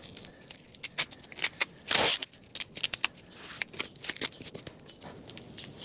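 Self-adhesive flashing tape being pulled off its backing and pressed by hand onto house wrap: a string of small crackles and rustles, with one short, louder rip about two seconds in.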